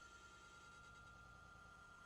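Near silence: a faint steady thin tone over a low background rumble, with no distinct events.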